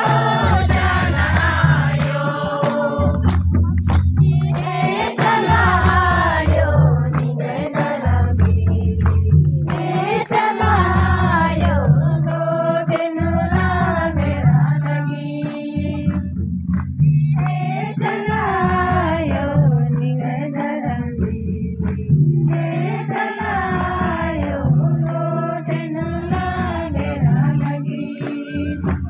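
Group of singers performing a Kurukh devotional song (bhajan), with a drum beating a repeating low pattern and a tambourine-like shaker jingling in steady ticks.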